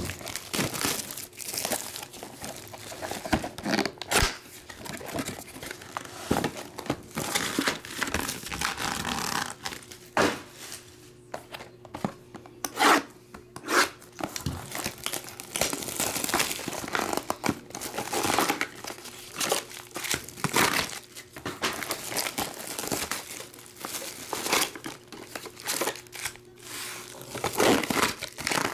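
Plastic shrink wrap being cut and torn off a sealed trading-card box and crumpled, and the cardboard box opened: irregular crinkling and tearing with scattered sharp clicks.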